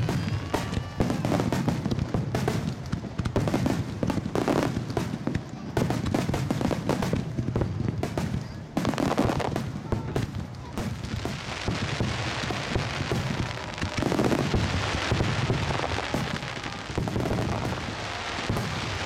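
Starmine fireworks barrage: a dense, nearly unbroken run of shell bursts, bangs and crackling.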